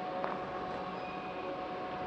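Steady mechanical hum holding several steady tones over a low haze, with a light click about a quarter second in.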